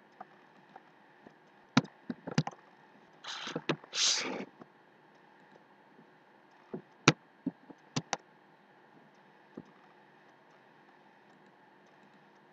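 Computer mouse and keyboard clicks, a few at a time: a sharp click about two seconds in with a quick cluster after it, and more around seven to eight seconds in. Two short hissing noises come about three and four seconds in.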